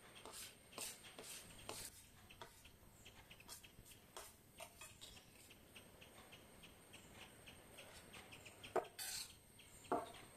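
Faint clinks and scrapes of a metal spoon against a steel plate as noodles are served and eaten, with two sharper clinks near the end. Under them runs a faint, even ticking of about three a second.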